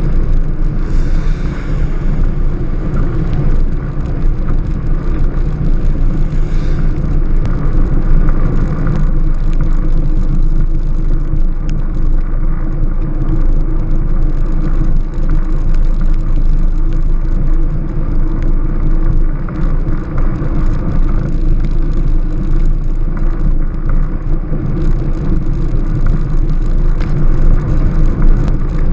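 Strada Carbon velomobile riding along a wet road, a steady loud rumble of road and wind noise.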